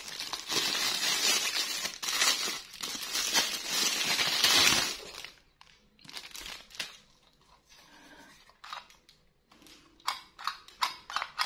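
Clear plastic wrapping crinkling and rustling as it is pulled off a plastic bowl and brush, dense for about five seconds, then fading to scattered rustles. Near the end comes a quick run of light clicks and taps.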